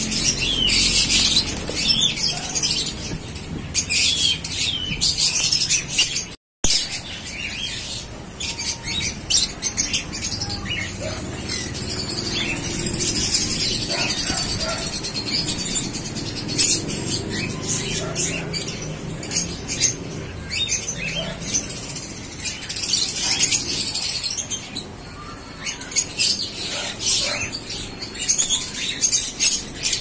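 A flock of caged lovebirds chattering: a constant stream of shrill, high chirps and squeaks, with now and then a flutter of wings. The sound cuts out for a split second about six seconds in.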